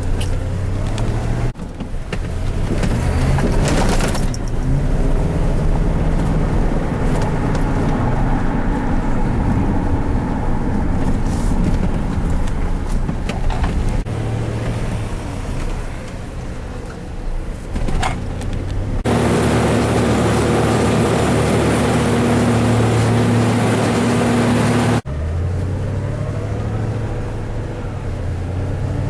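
Heavy engines running steadily, the sound changing abruptly a few times.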